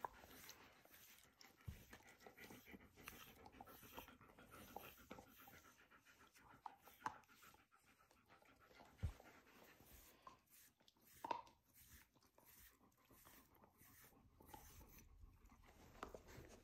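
Very quiet sounds of a German shepherd puppy being groomed: soft panting and repeated light strokes of a brush through its fur, with a couple of soft knocks in the second half.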